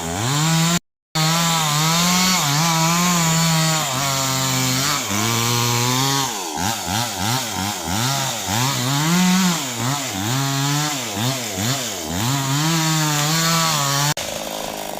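Two-stroke chainsaw cutting a large sengon (albizia) trunk, its engine pitch repeatedly rising and sagging as the chain bites into the wood, with fast wavering in the middle. It drops out briefly about a second in, and near the end gives way to a quieter, steady sound.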